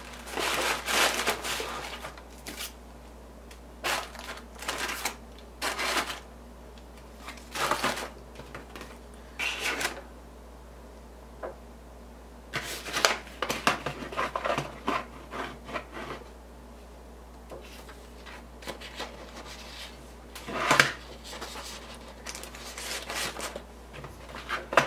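Paper, card and tissue paper rustling and being shifted around inside a stationery box. The handling comes in short bursts separated by quiet pauses.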